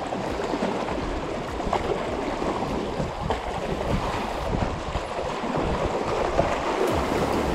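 Choppy reservoir water splashing and lapping against a rocky shore in a steady wash, with wind on the microphone.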